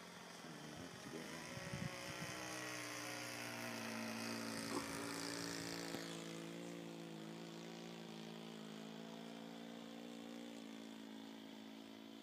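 Small propeller engine of an old-timer model airplane running in flight overhead, a steady drone that swells to its loudest in the middle and drops slightly in pitch as the plane passes, then fades a little.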